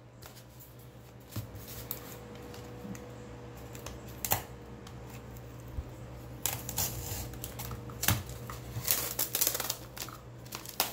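Utility knife cutting and scraping through packing tape on a styrofoam box: scattered scratches and clicks, most of them crowded into the second half, with the tape being peeled off near the end.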